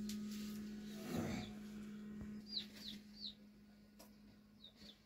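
A broody Aseel hen gives a short, low cluck about a second in, the sound of a hen gone broody and sitting on eggs. It is followed by a few faint, short, high chirps that fall in pitch.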